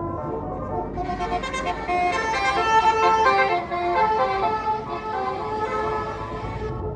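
Tour bus's basuri telolet musical horn playing a tune of changing, sometimes chorded notes. It turns louder and brighter about a second in and cuts off just before the end.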